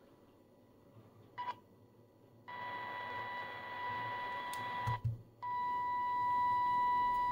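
Steady 1 kHz test tone over hiss from a Baofeng handheld radio's speaker, as it receives the FUP1A test generator's 144 MHz carrier with its internal 1 kHz modulation: the generator's transmitter and modulation are working. After a short blip, the tone comes in about two and a half seconds in, cuts out for a moment around five seconds, and then returns steady.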